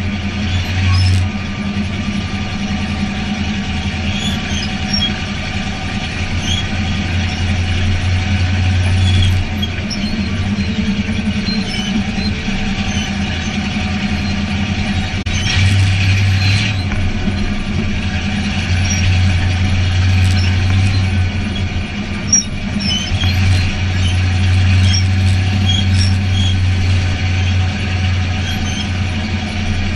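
Race car engine heard from inside the cockpit, running at a fairly steady pace. Its low drone swells and eases every few seconds.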